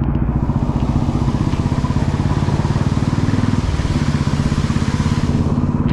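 Motorcycle engine running steadily under way, with a steady hiss layered over it from shortly after the start until just before the end.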